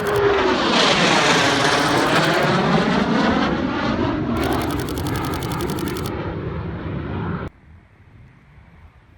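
Eurofighter Typhoon's twin EJ200 turbofans passing close by, the jet noise sweeping down in pitch as it goes past. A camera shutter fires a rapid burst about four seconds in, and the jet sound cuts off suddenly near the end.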